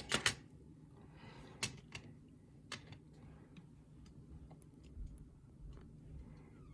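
Pins and small metal parts of a gutted pin-tumbler lock being handled: scattered light clicks and taps, two sharper clicks right at the start, over a faint steady low hum.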